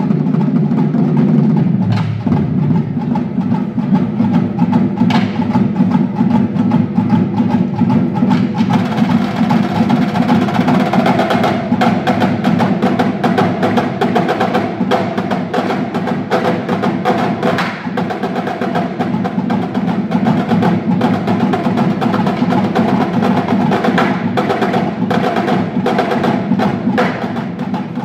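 High school drumline of snare, tenor and bass drums playing fast, dense rhythms, echoing in a gymnasium. The playing grows fuller about nine seconds in.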